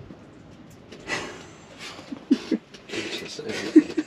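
A few short, faint murmured voice sounds over a quiet background with soft scuffing noise.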